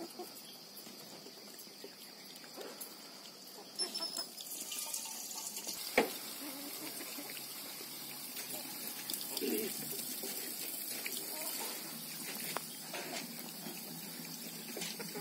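Water running from an outdoor standpipe tap into a metal pot, a steady splashing hiss starting about four seconds in. A single sharp knock about six seconds in.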